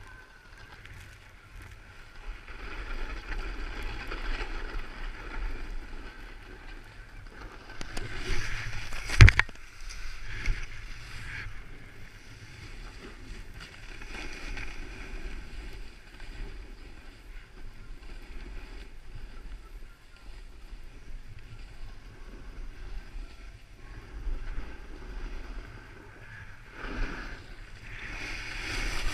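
Hiss and scrape of something gliding over packed snow down a ski slope, with wind rumbling on the action camera's microphone and swelling and fading as the speed changes. There is a single sharp knock about nine seconds in.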